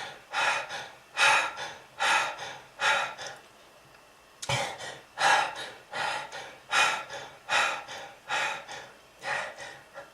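A person in a long coughing fit: a string of short, harsh coughs every half second to second, with a brief break about a third of the way through. It is presented as a smoker's cough from lung disease.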